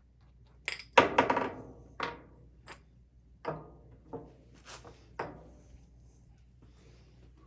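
A string of hard knocks and metallic clinks, about eight in all, like tools and metal parts being knocked and set down on a workbench. The loudest comes about a second in and rings briefly, and the knocks die out a little over five seconds in.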